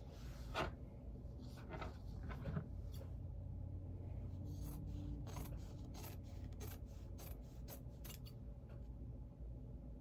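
Small scissors snipping through folded layers of fabric: a quick run of short, sharp snips about two a second from about halfway through, with cloth rustling as the stack is handled.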